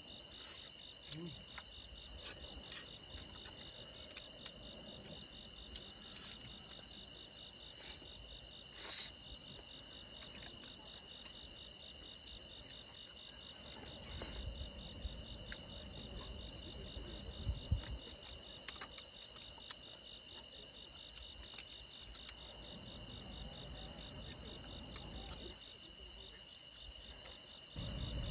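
A steady, high-pitched chorus of crickets trilling, with faint scattered clicks over it.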